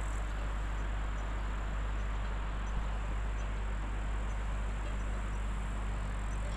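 Insects chirring steadily, a thin continuous high buzz, over a steady low rumble.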